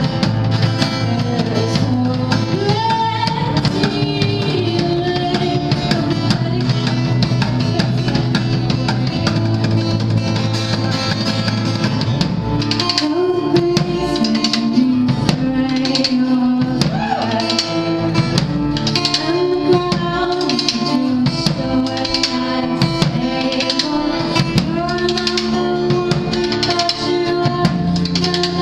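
Live band music: an acoustic-style song with guitar and a drum kit keeping a steady beat under a bending melodic line.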